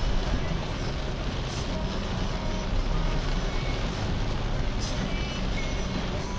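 Steady hiss and low rumble of a car driving in heavy rain, heard through a dashcam microphone: rain and wet tyre noise over the engine and traffic, with a few faint short high beeps.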